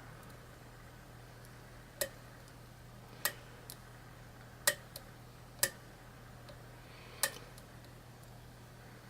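Lock pick working the pin stack inside a challenge lock during single-pin picking: five sharp metallic clicks at irregular intervals, with a couple of fainter ticks between them.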